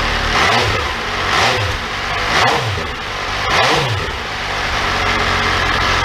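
2019 MV Agusta Brutale 800RR's three-cylinder engine, on its stock exhaust, idling and blipped four times, about one throttle blip a second. Each rev rises and falls back to a steady idle.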